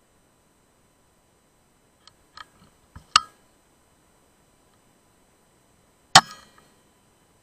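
A few light clicks and a sharp click about three seconds in, then a louder single shot from a PCP air rifle about six seconds in, with a short ring after it.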